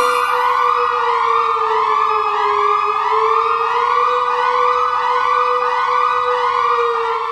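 Electronic siren-style alarm, loud: a quick rising whoop repeating about every 0.6 seconds over a steady, slightly wavering tone.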